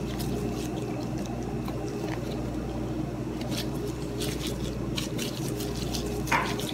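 Soft bread dough squishing and clear plastic food-prep gloves crinkling as dough is pinched off and rolled into balls by hand, with scattered small crackles over a steady low hum.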